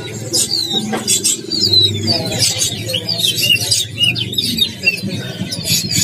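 Many caged songbirds chirping and calling together: a dense run of short, quick chirps and whistles that rise and fall, over a steady low hum.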